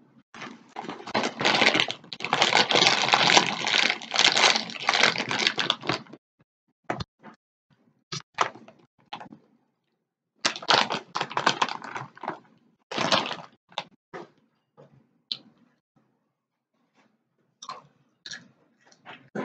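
A plastic snack bag crinkling for about six seconds, then scattered crisp crunches of a chip being bitten and chewed.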